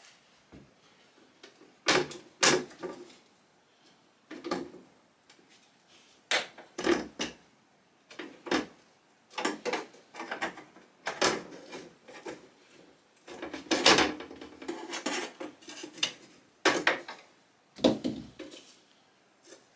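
Thin nailed-on seat board of an old wooden rocking chair being pried and wrenched loose from the frame by hand and with a screwdriver: a series of irregular wooden knocks, clunks and short scrapes, the longest and loudest stretch about two-thirds of the way through.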